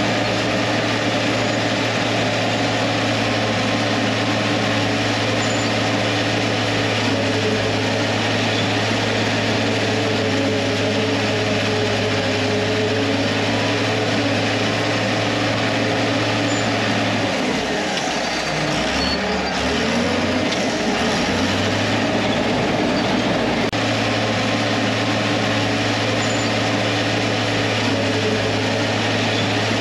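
TD15C crawler dozer's diesel engine running steadily under load while pushing topsoil. A little past halfway, its note drops and wavers for a few seconds, then comes back up to the same steady pitch.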